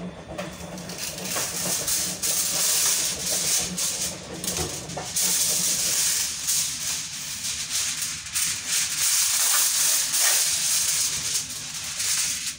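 Aluminium foil being pulled from its box, torn off and crinkled by hand: a loud, continuous crackling rustle.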